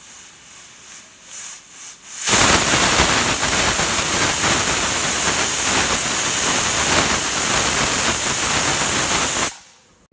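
Pressure cooker whistle: steam blasting out from under the lifted weight valve. A softer, uneven hiss builds for about two seconds, then the loud, steady hiss runs for about seven seconds and cuts off suddenly. It is the sign that the cooker is at full pressure, one of the counted whistles.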